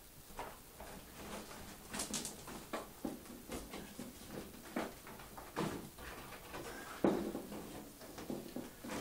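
Hands handling things on a workbench, irregular knocks, clicks and rustles several times a second, with the loudest knock about seven seconds in.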